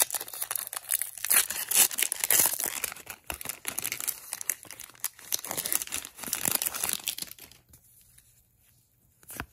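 Metallic foil Magic: The Gathering booster pack wrapper being torn open and crinkled by hand: a run of dense crackling that dies away about seven and a half seconds in.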